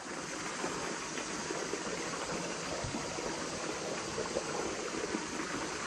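Small creek running over rocks and gravel: a steady rush of flowing water.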